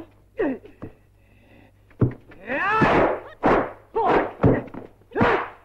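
Kung fu film fight sound effects: a quick run of punch and kick impact hits, each with a fighter's short yell, starting about two seconds in after a quiet moment.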